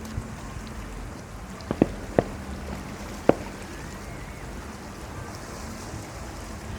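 Fireworks bursting: a few sharp bangs, two close together about two seconds in and one more a second later, over a steady rushing noise.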